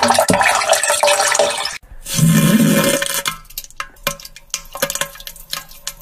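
Diarrhea sound effect: a wet, spattering rush of liquid, a brief break just before two seconds in, then a second burst with a low buzzing tone that breaks up into scattered splutters and trails off.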